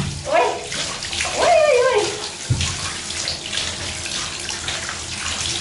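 Hand-held shower running steadily into a bathtub, the water splashing over long hair as it is rinsed. Two short pitched sounds that glide downward come in the first two seconds, and there is a low thump about 2.5 seconds in.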